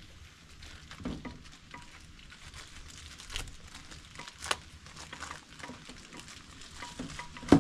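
Hands working a plastic oil bottle's cap and seal open: scattered small plastic clicks and taps with light rustling, the sharpest click near the end.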